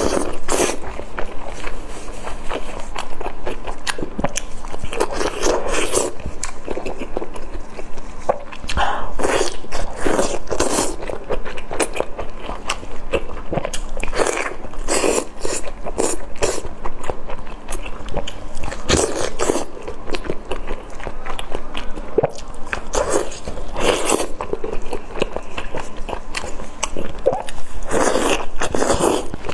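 A person biting and chewing strips of sauce-glazed pork, with wet, irregular eating sounds close to the microphone.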